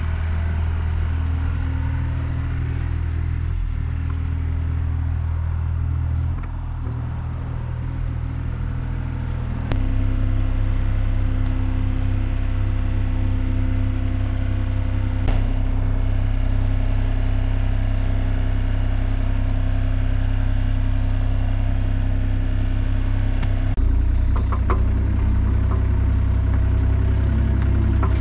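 Takeuchi TB235-2 mini excavator's diesel engine running steadily. It steps up louder about ten seconds in and changes again near the end.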